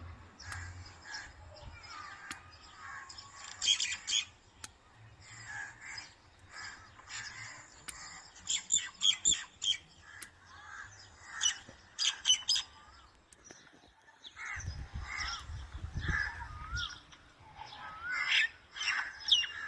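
Birds chirping and calling in short, repeated notes and brief wavering phrases.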